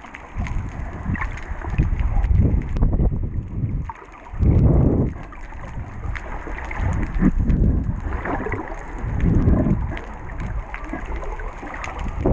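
Muffled underwater rumble of water rushing over a GoPro's waterproof housing as the swimmer holding it moves. It swells in irregular low surges, the loudest about four and a half seconds in, with scattered faint clicks.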